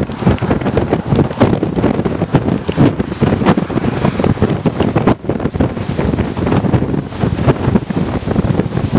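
Strong, gusty wind blowing across the microphone, loud and uneven with constant surges.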